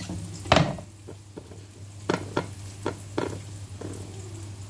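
Knife chopping chilies on a plastic cutting board: one loud knock about half a second in, then about five lighter, uneven chops. Behind them, a faint sizzle from the frying pan.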